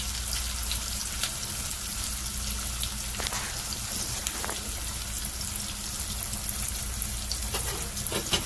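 Sliced onions and green chilies sizzling in hot oil in a pot, a steady frying hiss with scattered crackles and pops.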